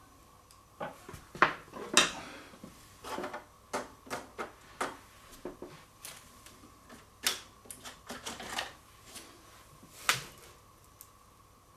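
Scattered light clicks and taps at irregular moments as small parts of a homemade Stirling engine are handled and probed with a thin tool on a wooden workbench.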